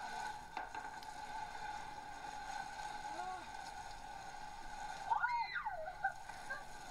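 Faint steady running water from an outdoor beach shower, with a high voice crying out briefly about five seconds in, its pitch rising and then falling.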